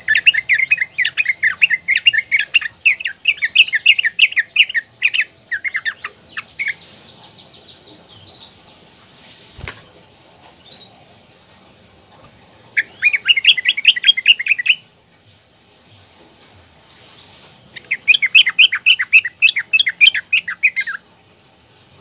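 Young female yellow-vented bulbul (trucukan) singing in bouts of rapid, bubbling chatter: one long run through the first seven seconds, then two shorter bouts about halfway through and near the end. A single faint knock comes near the middle.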